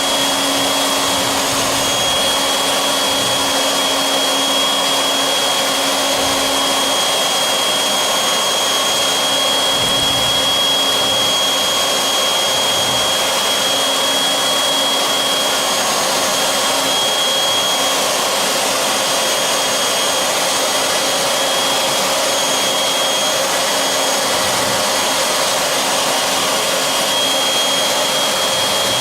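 Techno CNC router's spindle running steadily as it engraves a groove around a board: a constant high-pitched whine over a rushing noise.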